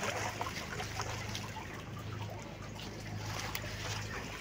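Hands picking fish and debris out of a wet nylon fishing net, with light rustling and scattered small clicks, over a steady low hum.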